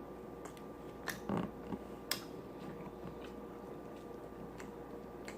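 A person eating close to the microphone: a few short wet mouth clicks and smacks about one and two seconds in, over a faint steady hum.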